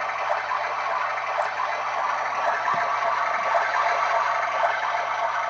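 Rushing-waterfall sound effect played loud through the small built-in speaker of a wolf motion picture: a steady, hissy rush of noise.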